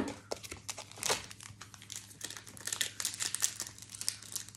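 Foil wrapper of a Pokémon Stellar Crown booster pack crinkling and tearing as it is handled and opened: a dense, irregular run of crackles, loudest about a second in.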